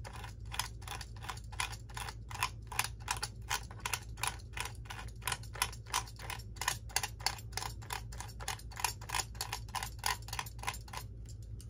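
Rapid, regular scraping of a small hand tool on a painted RC model's cockpit, about four strokes a second, scratching the paint off to rough up the surface for glue. The strokes stop shortly before the end. A low steady hum sits underneath.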